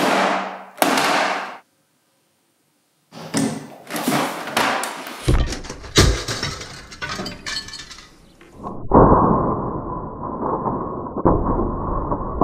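Two quick swishes, then after a short silence a long run of crashing and clattering as a printer smashes and its plastic parts break and scatter. About nine seconds in, this gives way to a steady, muffled rumble.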